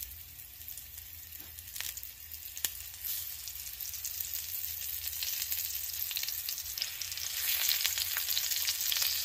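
Flour-dredged cube steaks sizzling and crackling in hot vegetable oil in a cast iron pan, getting louder as more steaks are laid in, with a few light clicks.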